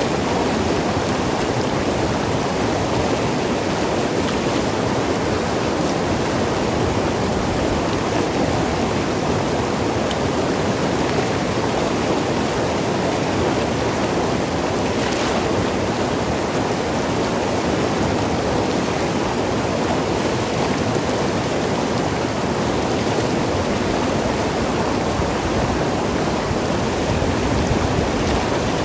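Mountain river rushing and gurgling over rocks, a steady unbroken flow.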